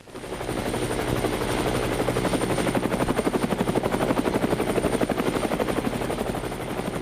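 A machine running with a fast, even chopping pulse of about ten beats a second over a steady low hum, fading in at the start.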